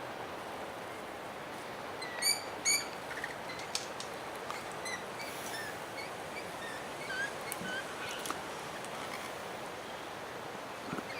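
Small birds calling at a feeder: two loud, sharp calls in quick succession about two seconds in, followed by scattered short chirps and squeaks, over a steady outdoor background hiss.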